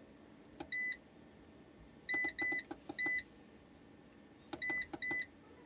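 Control panel of an Effekta AX M2 hybrid inverter beeping as its arrow buttons are pressed: each press gives a faint click and then a short, high beep. There are about seven beeps, most in quick runs of three, as the settings are stepped through.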